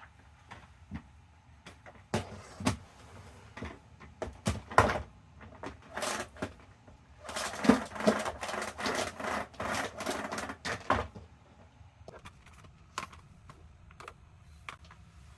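Handling noises: scattered clicks and knocks, with a dense stretch of clattering and rustling from about seven to eleven seconds in.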